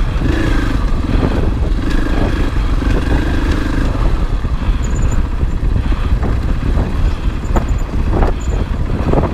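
2020 Husqvarna FE 501 dirt bike's single-cylinder four-stroke engine running under throttle. Its note holds steady for the first few seconds, then turns rougher, with several sharp knocks near the end.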